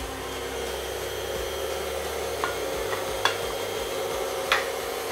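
Electric mixer running steadily, beating cake batter in a bowl, with a few light clicks of the beaters against the bowl.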